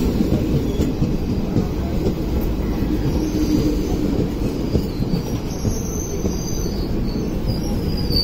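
Indian Railways ICF passenger coaches running past on the adjacent track: a steady, loud rumble of wheels on rail. A thin, high wheel squeal comes in over the second half.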